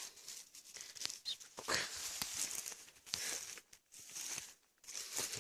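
Rustling and crackling in dry leaf litter and undergrowth on a forest floor, in uneven bursts with small sharp snaps and clicks.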